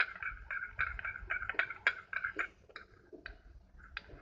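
Metal spoon stirring sugar and salt into lemon juice in a plastic bowl: a quick run of scrapes and light clicks against the bowl, thinning out to a few scattered taps after about two and a half seconds.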